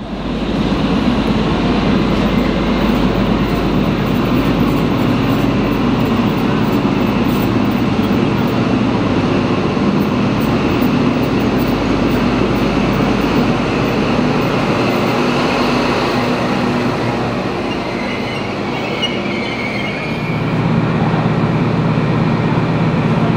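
V/Line diesel locomotive working its passenger train, the engine running steadily under loud rail and wheel noise. A brief high squeal comes about three quarters of the way in, and the engine note then grows louder.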